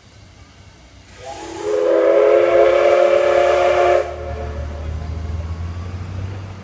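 A steam locomotive's whistle gives one long blast of about three seconds, a chord of several tones, starting about a second in and cutting off sharply; it is a whistle signal given on the turntable. A low rumble carries on after it.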